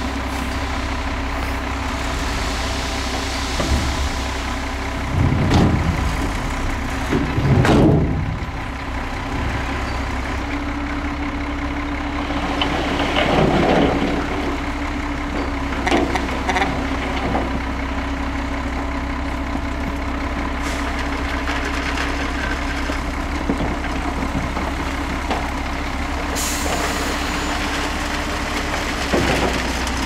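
Diesel dump truck engines running while the trucks tip their beds to unload dirt and rock. A steady whine from the tipper's hydraulic hoist joins about ten seconds in, and there are several brief louder surges.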